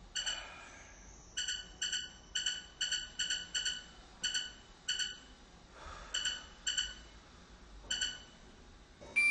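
Mobile phone keypad beeps as a number is keyed in: about a dozen short, high beeps at uneven intervals.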